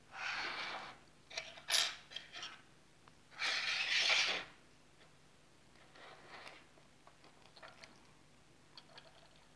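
A cracked iPad mini 2 rubbing and scraping on the work surface as it is handled and turned over. Two short rasps, the second and louder one about three and a half seconds in, with scattered clicks and light taps of a metal pry tool at the tablet's edge.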